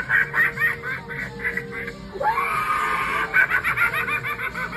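Halloween clown animatronic's built-in soundtrack: rapid laughter over music, in two runs with a short break about two seconds in.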